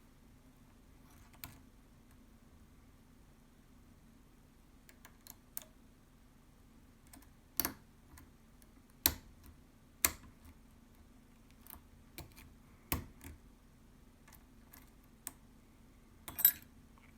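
A pin-tumbler lock being picked with a hook: about a dozen irregular sharp clicks and ticks of the pick and pins in the keyway, with the lock held in a deep false set. A faint steady low hum runs underneath.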